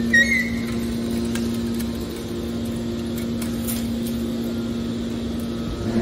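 Hydraulic scrap-metal baler running, its pump motor giving a steady hum while the ejector cylinder pushes out a compressed bale, with a brief high metal squeal in the first half second.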